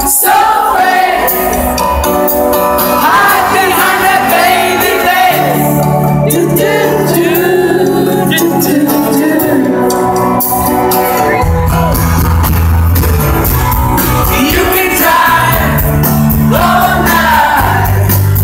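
Live rock band playing a song with sung vocals; a strong bass line comes in about five seconds in.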